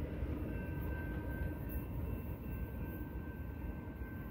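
Low rumble of a long BNSF double-stack container train receding into the distance, slowly fading, with a faint steady high ringing tone.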